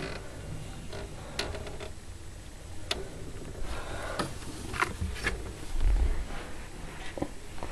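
Scattered light clicks, taps and rustles with low rumbling bumps close to the microphone, and a louder bump about six seconds in: handling noise as the camera is moved about against fabric.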